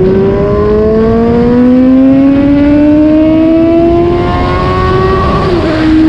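Suzuki GSX-S750's inline-four engine pulling hard under acceleration, its pitch climbing steadily for about five seconds, then dipping briefly as the rider shifts up near the end. Wind noise on the microphone runs underneath.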